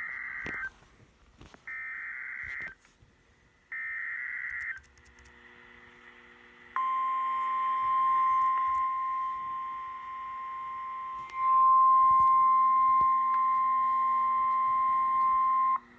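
Emergency Alert System SAME header: three bursts of screechy digital data tones, about a second each, then after a pause the steady NOAA Weather Radio warning alarm tone (1050 Hz), held for about nine seconds and louder in its second half. It signals a severe thunderstorm warning.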